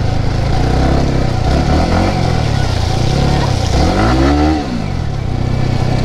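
Yamaha R15 motorcycle with an Akrapovic exhaust riding along. The engine note rises and falls twice as the throttle is opened and eased off, most strongly about four seconds in.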